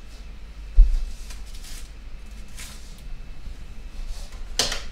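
Quiet kitchen handling at a stove: a dull low thump about a second in, faint clinks and rustles, then a louder clatter of cookware near the end.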